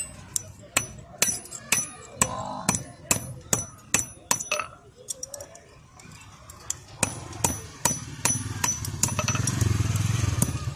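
Steel hammer striking an iron chain link held in pliers against an iron pulley used as an anvil: sharp ringing metal clinks, about two to three a second, with a pause of a couple of seconds in the middle. A low hum rises near the end.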